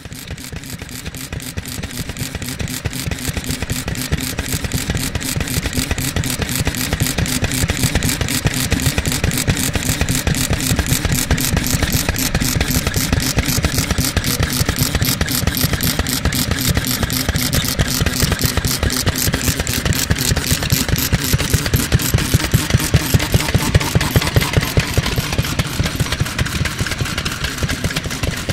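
1949 Daikin Type 2KH 2 hp single-cylinder spark-ignition oil (kerosene) engine running steadily, its exhaust beating fast and evenly. The beats grow a little stronger in the second half.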